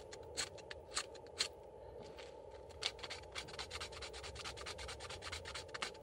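Cherry bark being scraped into fine tinder, with short rasping strokes. The strokes come scattered at first, then several a second from about halfway in.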